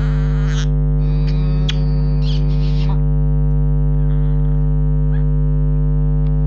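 A loud, steady hum with many evenly spaced overtones throughout. Over it come several short, high chirps and squeaks in the first three seconds, from the pet parrot nuzzling against a face.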